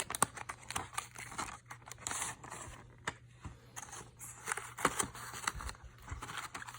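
Packaging of an Apple Watch replacement battery kit being opened and handled: irregular rustling and crinkling with small clicks and taps.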